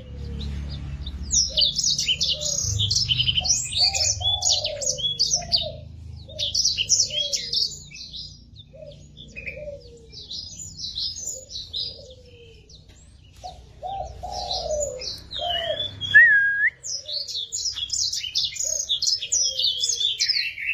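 Sanger, a small African seedeater finch, singing a rapid, high twittering song in long phrases broken by short pauses. A dove coos behind it with a lower falling note repeated about once a second.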